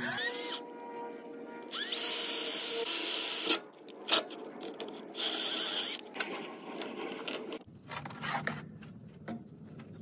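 Craftsman cordless drill boring through the generator's sheet-metal control panel. The motor whines up, and the bit screeches through the metal in two loud stretches of a second or so, about 2 s and 5 s in. A few clicks and knocks follow.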